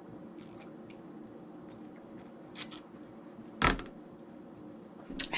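A bowl being handled while the last of the coconut water is drunk from it: small clicks, a couple of sharp ticks, and one louder knock about two-thirds of the way through, over a steady low room hum.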